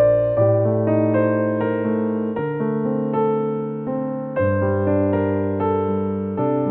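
Background music: electric piano playing slow sustained chords with a melody on top, the chords changing every couple of seconds.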